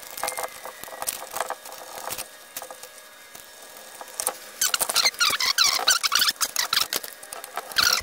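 Sped-up audio of a switch being installed: quick clicks and rattles of a screwdriver and the metal switch strap. From about halfway there is high-pitched, chipmunk-like chatter of a sped-up voice.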